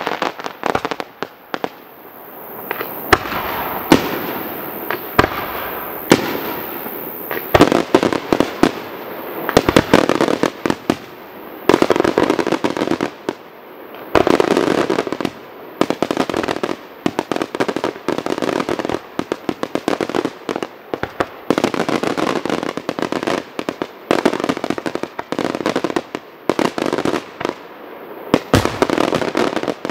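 Fireworks display: aerial shells bursting in a continuous barrage, dozens of sharp bangs at an uneven pace, many falling in quick clusters, over a constant rumbling haze.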